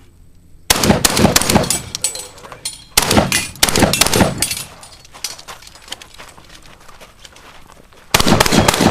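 Shotgun shots, each a sudden crack with a trailing echo, fired in groups: the first about a second in, more around three seconds in, and another group near the end.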